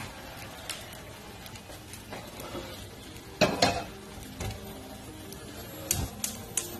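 Salmon fillets sizzling in a stainless steel frying pan, with a few sharp clinks and knocks of kitchenware. The loudest knocks come about three and a half seconds in, and a quicker run of them comes near the end.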